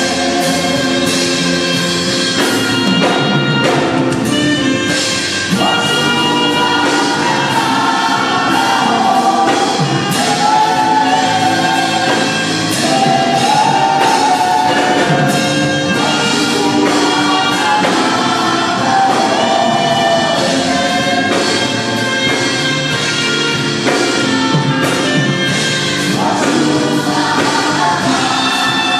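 Choir singing gospel worship music with band accompaniment and a steady beat.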